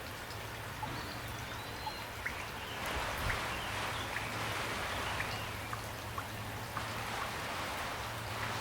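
Steady gentle rain, with individual drops tapping and dripping through it, a little heavier after about three seconds.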